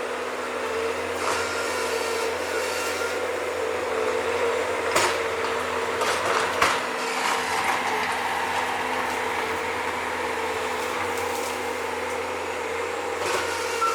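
Bobcat digging machine's engine running steadily with a hydraulic hum, with two sharp knocks about five and six and a half seconds in as it digs.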